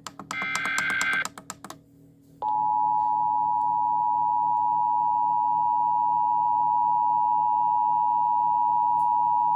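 Emergency Alert System SAME header: a short burst of rapid two-pitch digital warbling that stops about a second in. About two and a half seconds in, the steady two-tone EAS attention signal starts, loud and unbroken, which announces an alert that is about to be read.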